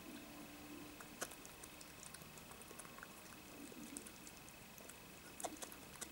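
Faint clicks and crunches of a European badger chewing food from a plate, with two sharper clicks about a second in and near the end. A thin, steady high whine runs underneath.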